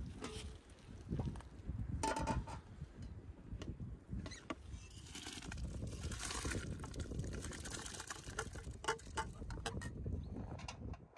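Wet rice poured from an enamel bowl into a large pot of steaming water, the grains pattering and splashing in a hissing stretch about midway, among light clicks and knocks of the bowl against the pot, over a low rumble.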